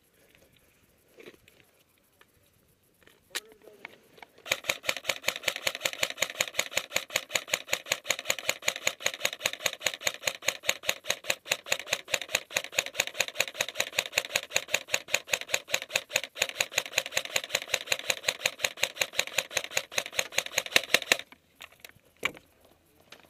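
Rapid, evenly spaced mechanical clicking, several clicks a second. It starts about four seconds in and stops abruptly about seventeen seconds later.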